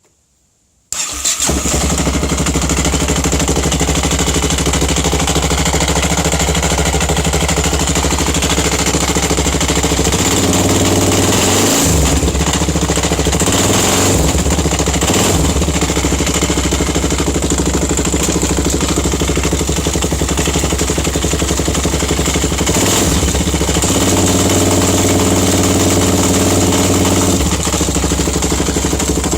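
Yamaha XT 660X single-cylinder motorcycle engine starting about a second in and then running steadily, its note changing a few times. A metallic rattle in the engine is what is being shown; the owner suspects it comes from the gears in front of the electric starter, but isn't sure.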